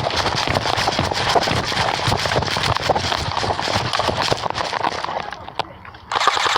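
Hurried running footsteps, a fast irregular patter of steps with equipment rattling, easing off after about five seconds. About six seconds in comes a short, loud, rattling burst.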